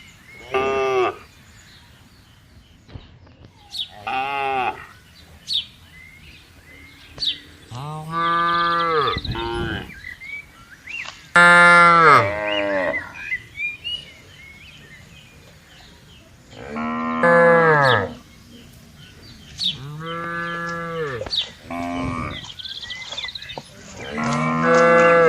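Cattle mooing: about seven long, drawn-out moos spaced a few seconds apart, some lower and some higher in pitch, suggesting more than one cow.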